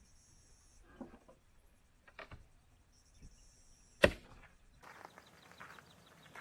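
Sparse light knocks and clicks, with one sharp knock about four seconds in, then a stretch of soft rustling and scuffing.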